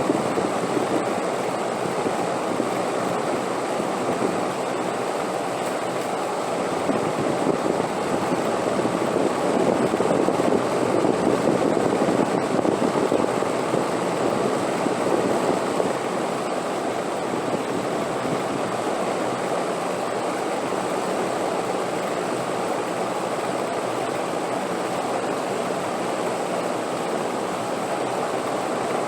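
Wind blowing steadily as a continuous rushing noise, swelling a little louder in the middle.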